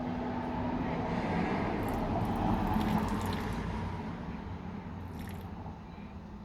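Wet squishing and dripping of RTV silicone rubber and its hardener being worked in a mixing pot, swelling a couple of seconds in and then easing off.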